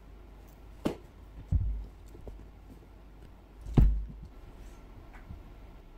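A few dull thumps and knocks, the loudest near four seconds in, as a standard poodle gets up and puts its front paws up onto a bed.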